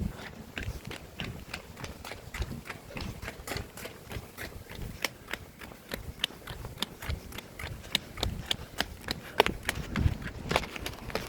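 Quick, regular footsteps of a person walking briskly, sharp clicks about three a second, with some low rumble underneath.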